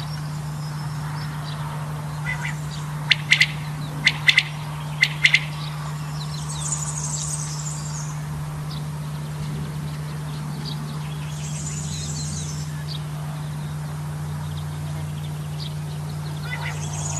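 Male common quail calling: sharp, clipped notes in quick pairs, repeated a few times about three to five seconds in. Higher, hazier twittering comes twice later on, over a steady low hum.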